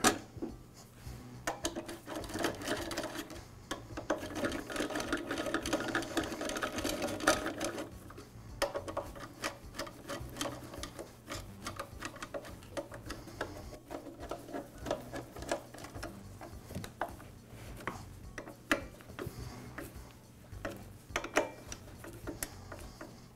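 A hand screwdriver driving in the mounting screws of a backpack blower's muffler: runs of fast, even clicking in two long stretches, then sparser ticks and light taps of metal on metal.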